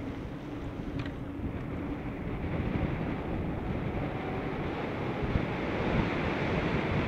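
Wind buffeting the microphone while riding a bicycle at speed, a steady rushing noise that grows gradually louder. A faint click comes about a second in.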